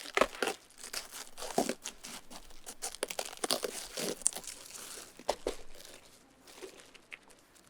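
A knife cutting the core out of a raw whole cabbage, with the crisp leaves crunching and crackling in irregular bursts that die away about six seconds in.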